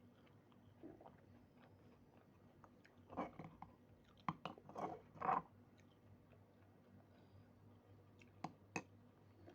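A person eating close to the microphone: a quiet stretch, then a cluster of louder chewing and biting sounds a few seconds in, and two short sharp clicks near the end.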